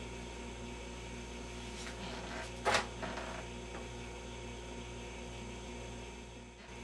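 Steady electrical mains hum from powered-up bench test equipment, with one brief knock a little under three seconds in.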